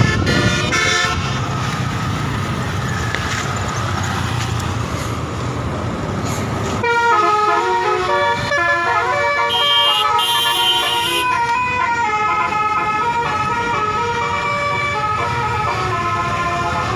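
Indonesian tour bus's multi-tone 'telolet' horn playing a tune of quickly changing notes from about seven seconds in. Before that, mostly a low engine and traffic rumble, with a brief run of horn notes at the very start.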